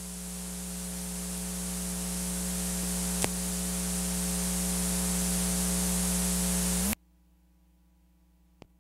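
Hiss and low hum of blank half-inch videotape playing back after the programme ends, slowly growing louder, with one click about three seconds in. It cuts off suddenly about seven seconds in, leaving near silence and a faint tick near the end.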